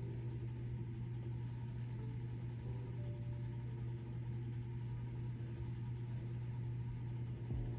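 A steady low hum at an even level, without a break.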